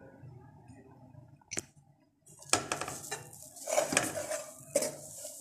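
Crackling, rustling handling noise with many sharp clicks, starting about halfway through after a near-silent start with a single click. It comes from hands working a shawarma and its paper wrapping on a metal tray.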